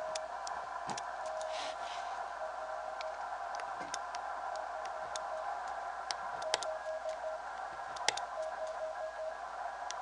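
Morse code (CW) signal from an amateur radio receiver on the 80-meter band: a single tone keyed on and off in slow dots and dashes over steady band hiss, with scattered sharp ticks.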